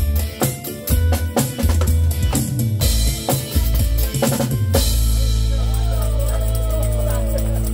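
Pearl drum kit played to a music track: a steady beat on bass drum, snare and cymbals for about five seconds, then a cymbal crash and a held final chord that rings out until the sound cuts off.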